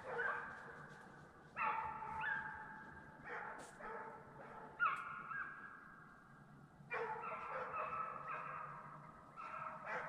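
Several deer hounds baying on a chase: long drawn-out bawls, each slightly falling in pitch, several overlapping, coming in bouts every second or two.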